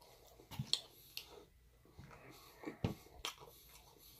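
Close-up mouth sounds of someone chewing a bite of pizza: irregular wet smacks and clicks, the sharpest about a second in and near three seconds in.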